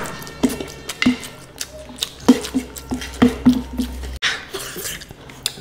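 Close-miked eating sounds: wet chewing and mouth smacks in quick, irregular clicks and pops.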